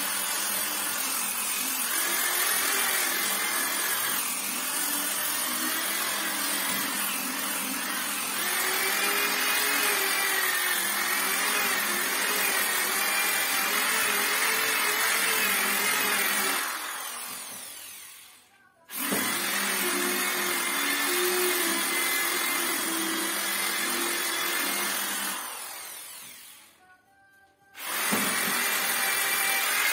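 Electric round-pad orbital sander running against a wooden door panel, a steady whine with a wavering pitch, sanding the rough old surface back before repainting. Twice it winds down and falls silent for a second or so, then starts up again.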